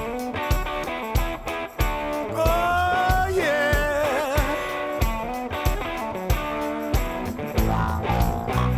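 Rock music with guitar over a steady drum beat, and a lead guitar line that bends and wavers from about two and a half to four and a half seconds in.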